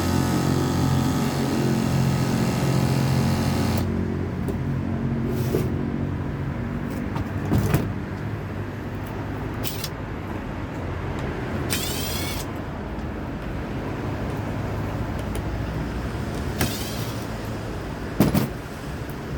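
A motor running steadily, which cuts off about four seconds in. After it there is a lower steady background with several sharp clicks and knocks.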